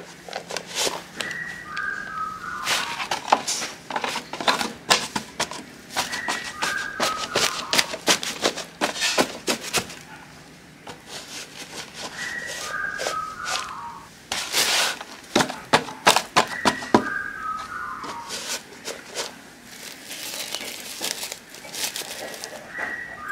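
Crinkling and rustling of a woven plastic sack of soil being handled, an irregular crackle of many small clicks. A short whistled call of a few falling notes comes five times, about every five seconds.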